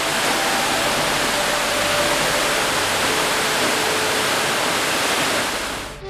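A tall waterfall's falling water rushing in a dense, even, steady hiss.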